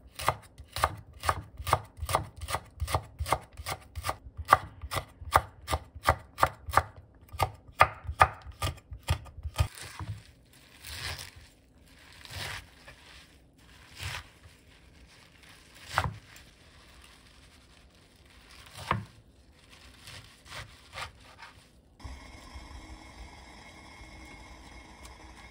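Chef's knife slicing green onion on a wooden cutting board in a quick even rhythm, about three cuts a second, then slower, scattered cuts through a pile of wet mallow leaves. A faint steady hiss takes over near the end.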